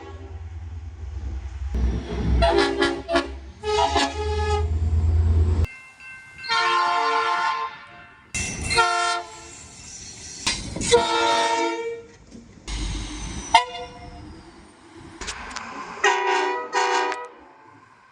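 Train horns sounding a string of multi-tone chord blasts: quick short toots mixed with several blasts held for about a second. A low train rumble runs under the first few.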